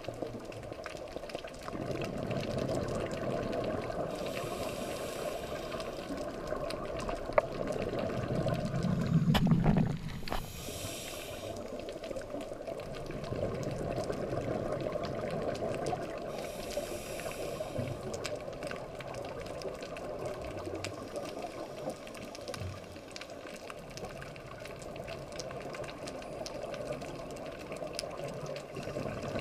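Scuba diver's regulator breathing underwater, heard through the camera's underwater housing. There are three hissing inhalations several seconds apart, and a loud low rush of exhaled bubbles about nine seconds in.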